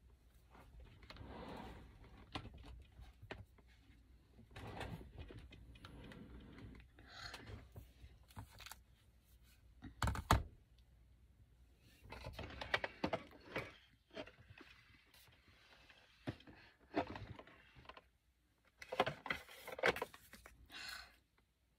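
Rummaging through makeup and containers: irregular knocks, clacks and rustling as items are handled and moved about, with one sharper thump about ten seconds in.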